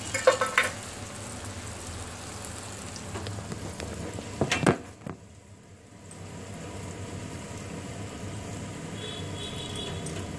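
Hot oil sizzling as vadas deep-fry in a kadai, with sharp metal clinks of a spoon against the pan in the first second. A loud clatter comes about four and a half seconds in, then the sizzling gives way to a quieter steady background.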